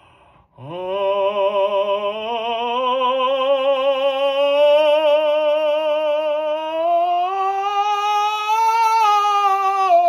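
A classical voice sings one long, unbroken vowel with steady vibrato, starting about half a second in. The pitch climbs slowly through most of the note and dips a little near the end, as in a legato vocal exercise.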